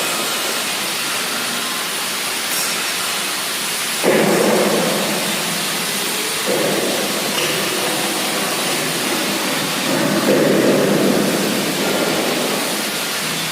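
Gas brazing torch burning with a steady hiss, heating a copper tube joint and brazing rod. Its flame roar swells about four seconds in, again a couple of seconds later, and near ten seconds.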